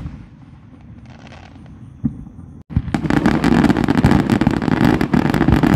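Fireworks going off: a single sharp bang at the start and another about two seconds in, then from about three seconds a dense, continuous run of rapid pops and crackling as many shells burst together.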